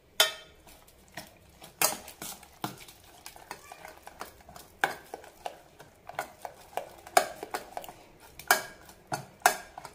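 Steel ladle stirring thick rice batter and jaggery syrup in a stainless steel pot, knocking and scraping against the pot's sides in irregular clinks.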